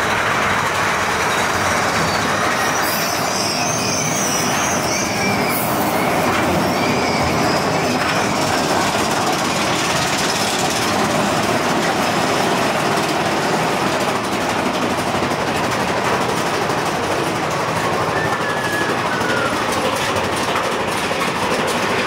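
Big Thunder Mountain Railroad mine-train roller coaster running on its track, a steady loud rumble of the train's wheels and cars. A few faint higher squeaks sit over the rumble a few seconds in and near the end.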